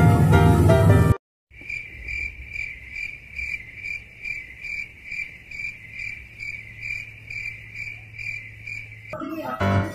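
Keyboard music cuts off about a second in. After a short silent gap, a cricket-chirping sound effect follows: a high trill pulsing evenly about three times a second over a faint low hum, used as the stock 'awkward silence' gag. The music returns near the end.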